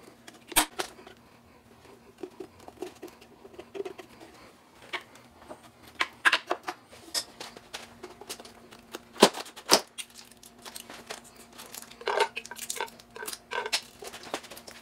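Hand tools and metal parts clicking, clinking and knocking as the aluminium coolant plate of an electric-car battery pack is unbolted and handled: scattered sharp taps, a few louder knocks, over a steady low hum.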